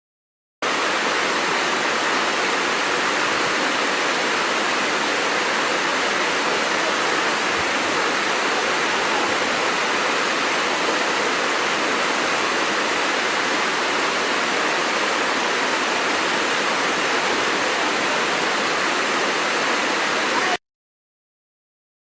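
Steady rushing of a waterfall, an even roar of falling water. It starts suddenly just after the beginning and cuts off suddenly near the end.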